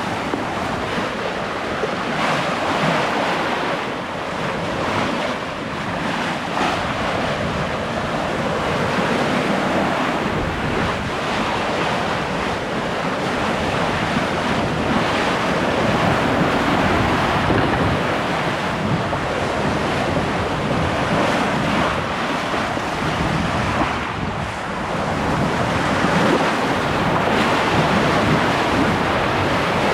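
Waves and water rushing along the hull of a sailboat moving under sail, with steady wind buffeting the microphone.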